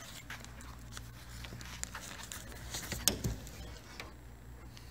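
Plastic wrapping crinkling and rustling as a wrapped aluminium-framed skylight is handled and tilted up off its box, with one sharp knock about three seconds in.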